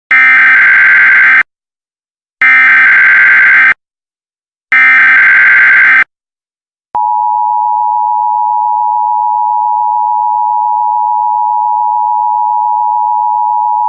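Emergency Alert System signal: three short bursts of SAME header data, then about seven seconds in the steady two-tone EAS attention signal starts and keeps sounding, announcing an emergency message.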